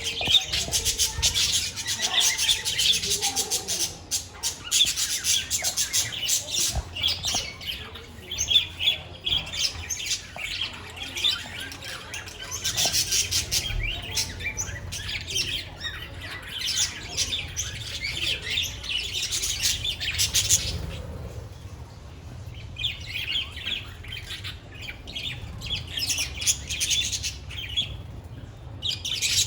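A flock of budgerigars chattering and chirping together, with dense overlapping warbles and squawks that ease off briefly about two-thirds of the way through, then pick up again.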